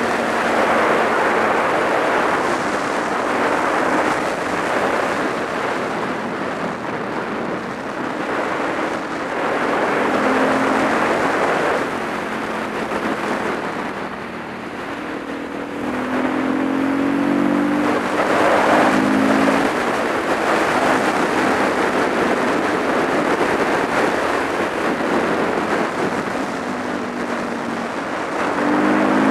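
Wind rushing over the microphone of a supermoto motorcycle on the move, with the motorcycle's engine note rising and falling several times as it accelerates and shifts.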